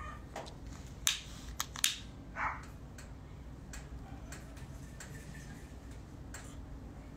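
A long-neck utility lighter being sparked to light a cigar: three sharp clicks about a second in, then a short breathy sound as it catches.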